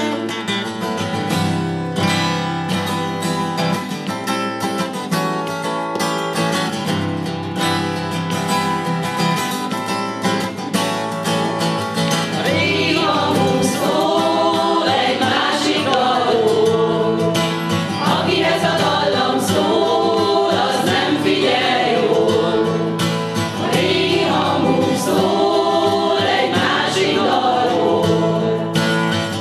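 Choir singing a song accompanied by acoustic guitar and violin. Guitar strumming stands out in the first half; from about halfway the sung melody lines come forward with more movement.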